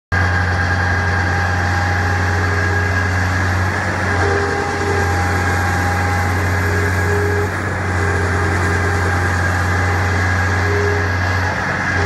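Putzmeister 24Z concrete pump running while pumping concrete: a loud, steady low engine drone that dips briefly about every four seconds.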